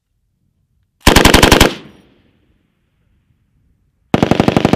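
Machine gun firing two short bursts of rapid automatic fire, about a dozen rounds a second, the first about a second in and the second near the end, cut off by the window's close; a brief echo trails the first burst.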